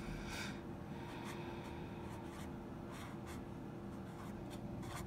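Blue felt-tip marker writing numbers on a paper worksheet: a series of short, faint strokes.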